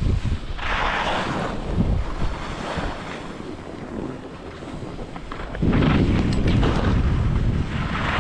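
Wind buffeting the microphone as it moves downhill at speed. Skis or a board scrape across packed snow in turns: a hissing scrape about a second in, quieter gliding through the middle, then louder scraping and rumble from about six seconds on.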